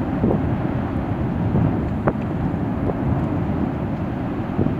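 Active lava lake boiling violently: a loud, steady low rumble broken by several sharp cracks and pops as gas bursts through the surface and throws up lava fountains and spatter.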